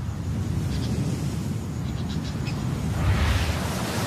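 Wind with a low, steady rumble and a few faint bird chirps. A rushing gust swells from about three seconds in.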